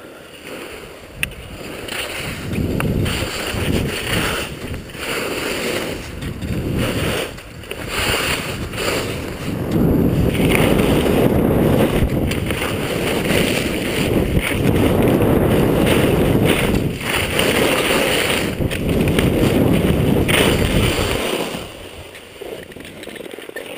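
Wind rushing over the skier-mounted camera's microphone with the hiss of skis running on snow, growing louder as speed builds and falling away suddenly near the end.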